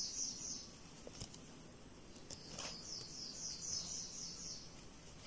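Faint, high-pitched, rapid bird trill, heard twice: briefly at the start and again for about two seconds midway, with a soft tick in between.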